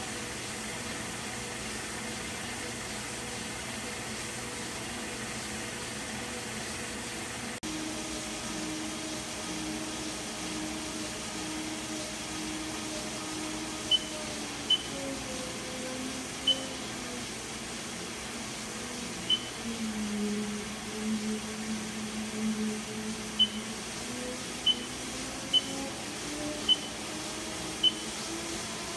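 Haas TL-3B CNC lathe spindle turning its 25-inch chuck, a steady machine hum with humming tones that shift lower and higher several times. Short, sharp ticks come at irregular intervals in the second half.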